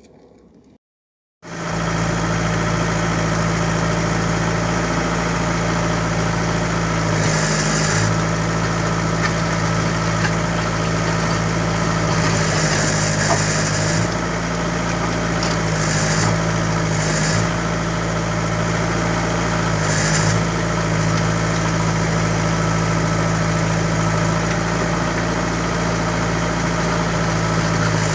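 Diesel engine of a heavy construction machine running steadily at idle, starting abruptly about a second and a half in, with a brief higher hiss breaking in several times.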